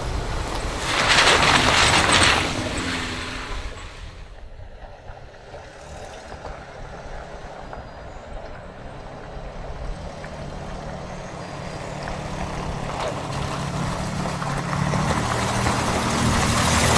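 A truck driving on the road with wind rushing over the microphone, loudest briefly a second or two in. The engine hum grows steadily louder toward the end.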